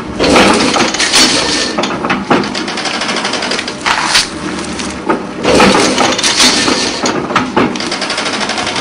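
Straw mattress braiding machine running, a loud dense clatter of irregular knocks and clicks that surges louder several times, over a steady low hum.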